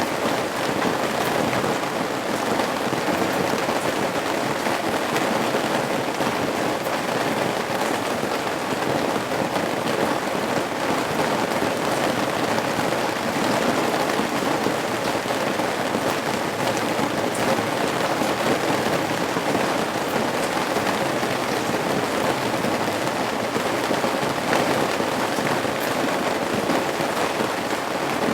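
Steady rain falling and dripping at the eaves of a roof, a dense even patter of drops.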